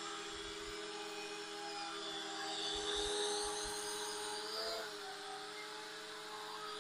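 ATTOP X-PACK-3 foldable mini-quadcopter's motors and propellers buzzing steadily in flight, with a brief wobble in pitch about two-thirds of the way through as it manoeuvres.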